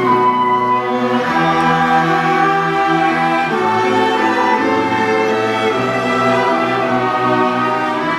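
Ensemble of cellos with a children's string orchestra playing a lyrical melody in held, bowed notes, the bass line moving to a new note every second or so.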